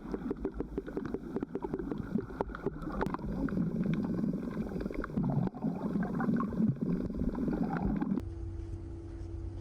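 Churning, gurgling water noise with many small clicks and a low rumble. It cuts off abruptly about eight seconds in, giving way to a steady low hum.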